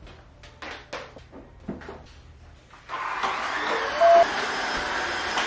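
Rustling and light knocks as bath rugs are moved across a tiled floor. About three seconds in, an upright wet-dry floor cleaner switches on and runs with a steady whirring hum, with a short loud rising tone about a second after it starts.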